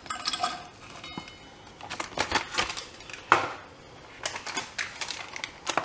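Flaked almonds dropped into the stainless-steel bowl of a small electric grinder, landing as scattered light clicks and rustles against the metal, with the plastic tub they come from being handled. The grinder motor is not running.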